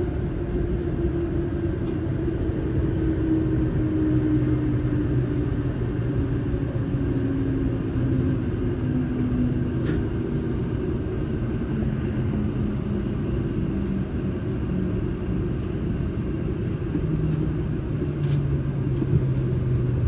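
Inside a Shinkansen car: a steady low rumble from the running train, with a motor whine that slides down in pitch over the first dozen seconds as the train slows into a station. A lower hum rises near the end.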